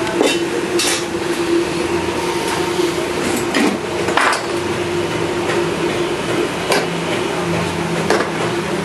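Iron frame and loose steel bars clanking against each other and the concrete floor as they are handled: about half a dozen separate metal knocks, the loudest about four seconds in, over a steady hum.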